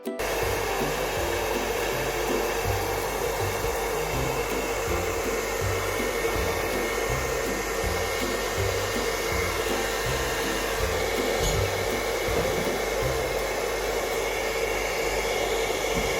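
Hair dryer running steadily, a constant rush of blown air with a steady hum, blowing on wet epoxy resin to push it into wave patterns.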